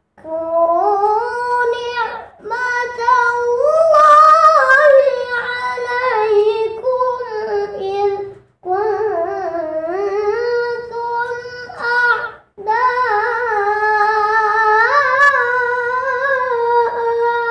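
A boy reciting the Quran in melodic tilawah style, the verse beginning "wadhkuru ni'mata Allahi 'alaykum", in a high child's voice. He holds long, ornamented notes in four phrases, with a short breath between each.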